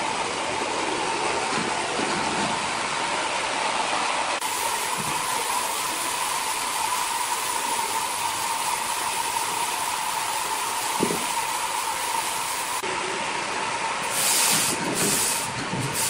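Large horizontal band sawmill running, a steady machine noise with a constant whine. Near the end come a few short, loud hissing bursts.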